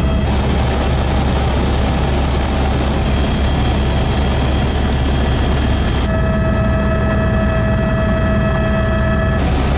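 Helicopter in flight heard from inside the cabin: a steady, deep drone from the rotor and engine. A high whine is absent at first, sets in about six seconds in and stops shortly before the end.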